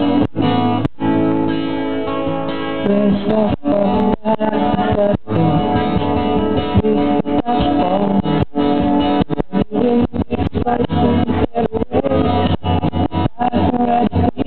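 Background song with guitar playing, the sound broken by many brief dips in level.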